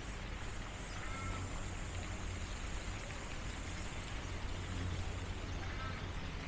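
Steady outdoor ambience of broad hiss and low rumble, with two faint short bird calls, one about a second in and one near the end.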